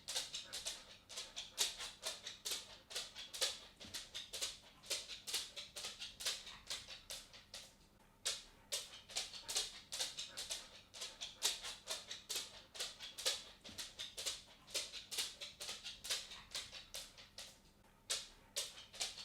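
A dog's claws clicking on a wooden floor as it walks, in quick, uneven runs of clicks that pause briefly about eight seconds in and again near the end.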